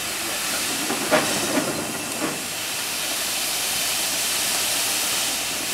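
1921 Kelly Springfield steam roller hissing steam steadily, the hiss growing a little louder, with a few brief louder sounds between one and two seconds in.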